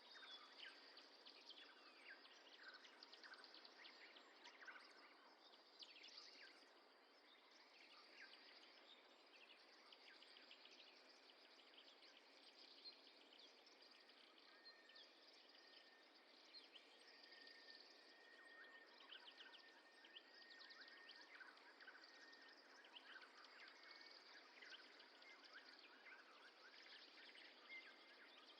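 Faint outdoor birdsong: many small birds chirping and twittering over a soft, steady hiss, with one thin held note in the middle stretch.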